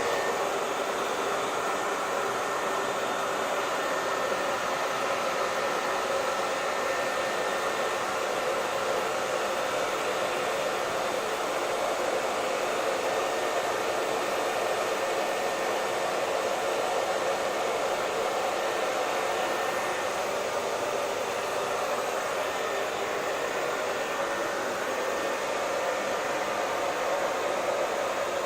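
Handheld hair dryer running steadily: a constant blowing rush of air over its motor's faint whine, with no change in speed.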